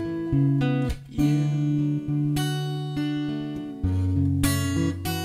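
Acoustic guitar playing a slow chord progression, each chord struck and left to ring, about five changes in a few seconds.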